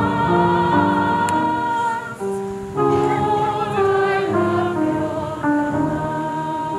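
Group singing, with a solo voice and flute, of the sung response between the Mass readings (the responsorial psalm). The melody moves slowly in long held notes.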